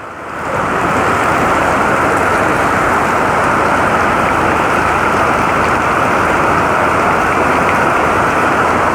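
Heavy rain pouring down in a steady, dense hiss that swells over the first second.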